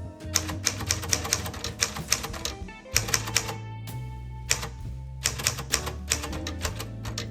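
A 1939 Smith Corona Standard manual typewriter being typed on: its typebars strike the platen in quick runs of sharp clacks with short pauses between them. Background music with steady bass notes plays underneath.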